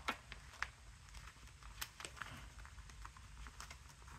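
Faint handling of a cash-stuffing binder: a few sharp clicks, the first right at the start, as its metal rings are worked, with light rustling of paper bills and a plastic pocket.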